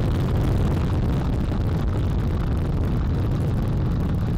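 Space Launch System rocket climbing away from the pad, its four RS-25 core engines and two solid rocket boosters making a steady, deep roar.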